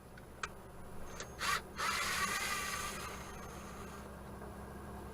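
Cordless drill/driver backing out a light fixture's mounting screw: a short burst, then a longer whir that tails off, after a single click.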